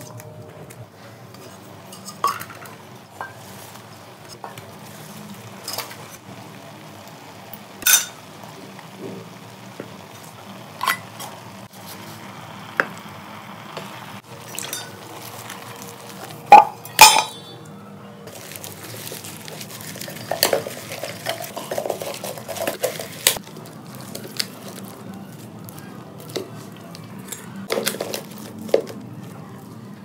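Scattered clanks and knocks of an aluminium saucepan and its lid, with banana leaves being handled inside the pot. Two loud clanks come a little past halfway, followed by a stretch of quicker small clicks and rustling.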